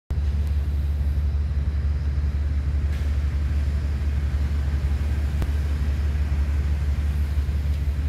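Steady low machine rumble, with a few faint clicks.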